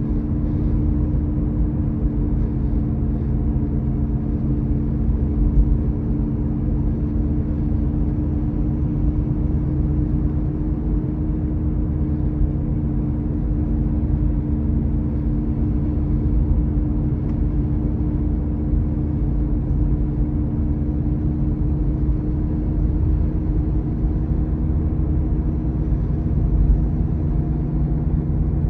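A steady droning noise: a constant low rumble with a few steady hum tones over it, unchanging throughout.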